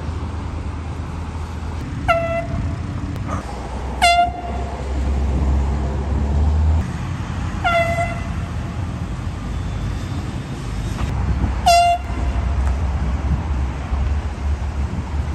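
Air horn blasted in four short bursts, each sliding down briefly into a steady tone, over a steady low rumble.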